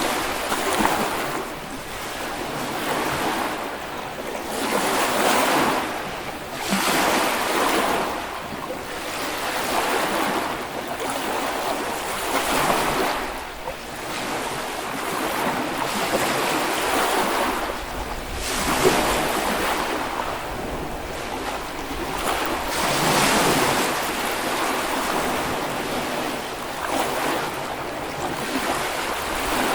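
Small waves breaking and washing up on a sandy Baltic Sea beach, each surge swelling and fading every few seconds, with some wind on the microphone.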